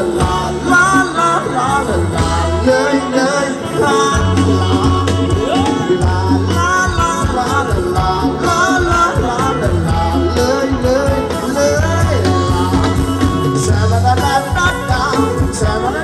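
Thai ramwong dance song played by a live band: a singer's wavering melody over guitar and a bass line repeating held notes, at a steady dance beat.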